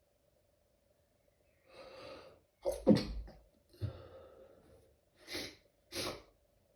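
A run of stifled sneezes. After a breathy intake, the loudest sneeze comes about three seconds in and is followed by a breathy exhale. Two shorter stifled sneezes follow near the end.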